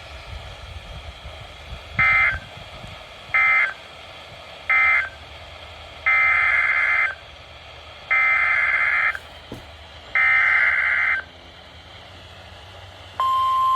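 Emergency Alert System SAME digital data bursts: three short screechy bursts, the end-of-message code, then three longer bursts, the header for the next alert. Near the end a steady single-pitch alert tone starts, the NOAA Weather Radio warning alarm tone.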